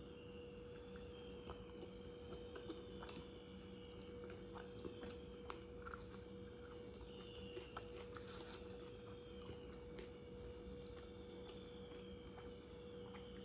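Close-up eating sounds: soft, scattered mouth clicks and smacks of someone chewing chapathi and curry, over a faint steady electrical hum.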